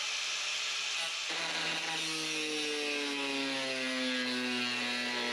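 Corded electric power tool running as it cuts through a rusted fender bolt, a steady hiss with a set of tones that come in about a second in and slowly drop in pitch as the tool is loaded.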